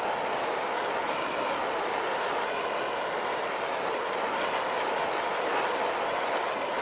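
Handheld gas blowtorch flame hissing steadily as it heats a brass disc to antique it with heat colours.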